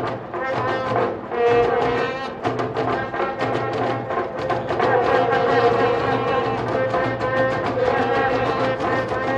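Music of brass horns holding long notes over steady drumming.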